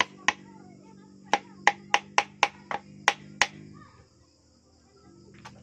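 Sharp metallic clicks, about ten, from hand tools working on engine parts, coming in uneven runs of roughly three a second over a steady low hum that drops away about four seconds in.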